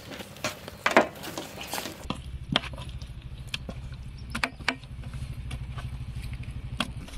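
Hands squishing and slapping raw chicken pieces in thick red masala paste on a steel plate, making a run of short wet squelches and clicks. About two seconds in, a steady low rumble starts underneath.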